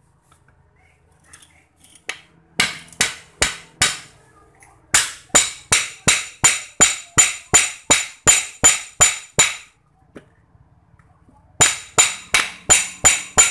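Hammer blows on the cast metal end cover of a Bảo Long electric water pump motor, knocking it loose to get at the burnt-out winding. Ringing metal strikes in three runs with short pauses: a few blows, then about a dozen at two to three a second, then about seven more near the end.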